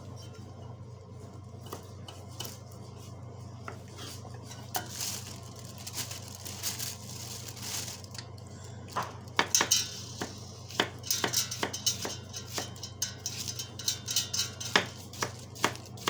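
Metal objects clinking and clattering, sparse at first and busier from about halfway through, over a steady low hum.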